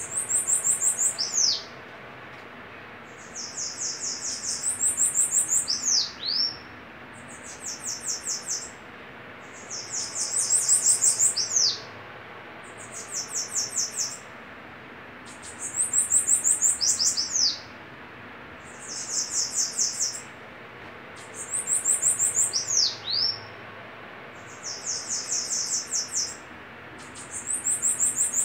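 Two caged bananaquits (sibite) singing against each other in a duel: high, rapid buzzy trills repeated about every three seconds, each song ending in a quick falling slur.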